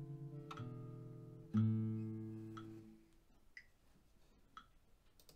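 Nylon-string classical guitar playing the final slow single notes of a B harmonic minor scale in time with a metronome, ending on a low note struck about a second and a half in that rings out and fades by about three seconds. After that only the metronome's soft ticks go on, about one a second.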